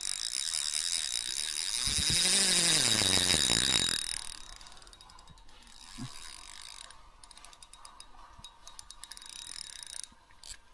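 Fishing reel clicking rapidly as a hooked fish pulls line off the drag, for about four seconds, with a lower hum rising and falling underneath in the last two of those seconds. After that the reel gives only quieter, scattered clicks.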